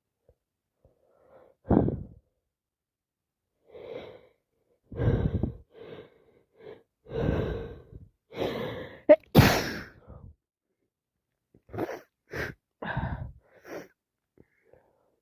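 A woman with a heavy head cold sneezing: a run of short catching breaths builds to a loud sneeze about nine seconds in, followed by several quick, shorter bursts near the end.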